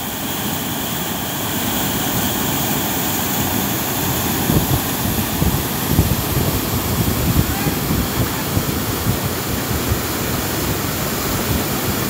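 Ngounié River rapids: white water rushing and churning over a rock ledge in a loud, steady roar, with low gusty surges joining in from about four seconds in.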